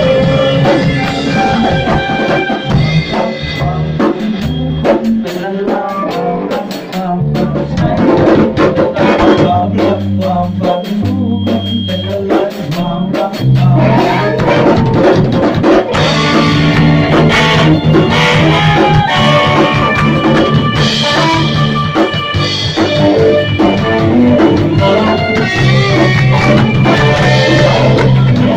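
A live rock band playing: drum kit with cymbals, electric bass and electric guitar through amplifiers. The playing thins out for a while in the first half and comes back in full about halfway through.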